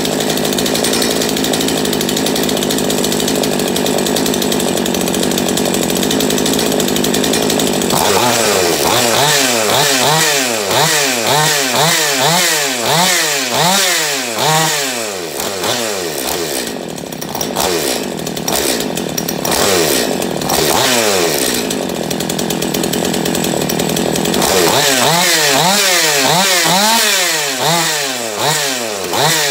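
Husqvarna 246 two-stroke chainsaw engine running on the bench after a carburettor clean, steady at first. About eight seconds in, its speed starts swinging up and down about once a second while the carburettor is being adjusted.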